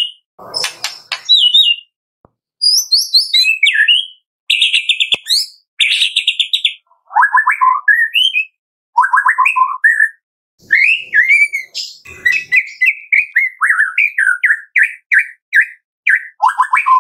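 White-rumped shama singing a loud, varied song of whistled phrases and rapid trills, with a few rasping notes, broken by short pauses between phrases.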